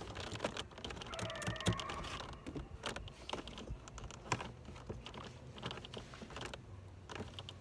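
Scattered light clicks and taps of hands handling the plastic door trim and parts around a car's side-mirror mount, irregular and spread throughout.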